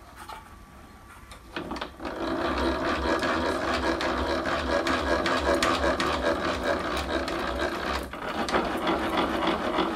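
Drill press knee being wound along its ballscrew and linear rails by the handwheel, with the knee brake released: a steady mechanical rattle of rapid ticks that starts about a second and a half in and dips briefly near eight seconds.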